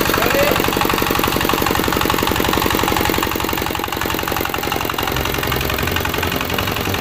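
Single-cylinder diesel engine of a two-wheel walking tractor running steadily with a rapid, even chugging while its reversed cage wheels churn through a heap of dry cement, sand and gravel.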